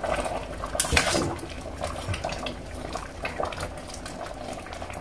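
Wooden-handled metal spoon clinking and scraping against a steel pot while stirring simmering mung bean soup with spinach. The soup bubbles underneath, and the sharpest clink comes just under a second in.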